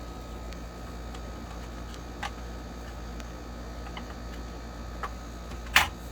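A few light clicks and taps from small parts being handled, the loudest near the end, over a steady low hum.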